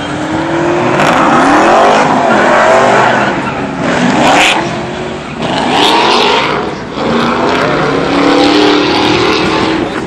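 A pickup truck's engine revving hard in repeated surges, its pitch climbing and dropping about four times, as the truck spins its tyres doing burnouts and donuts.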